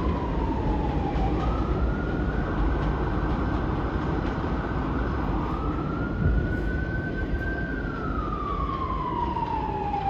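An emergency-vehicle siren in a slow wail. Its pitch falls for about a second, jumps back up, holds high for several seconds, then falls again near the end. A steady low rumble runs underneath.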